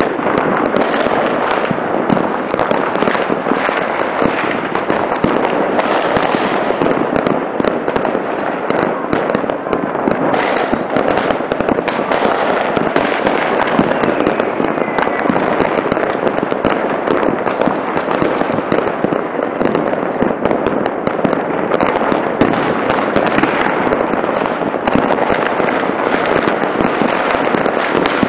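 Dense, unbroken barrage of fireworks and firecrackers going off across a city: countless overlapping bangs and crackles with no pause.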